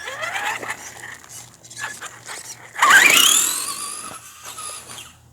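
RC car's motor whining as it accelerates, the pitch rising at the start, then a louder, steeply rising whine about three seconds in that fades away over the next two seconds.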